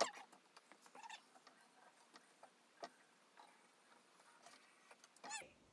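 Faint handling sounds of yarn being drawn around the wooden pegs of an inkle loom: scattered light clicks and a few short squeaks, one at the start, one about a second in and a falling one near the end.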